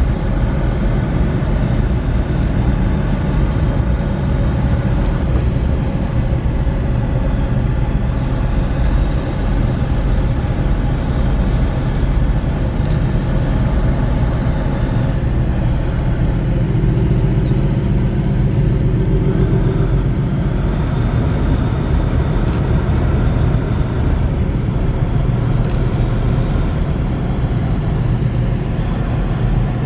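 Steady low diesel drone of ship engines manoeuvring in harbour, a deep rumble with a hum of several even tones; a slightly higher tone joins in for a few seconds past the middle.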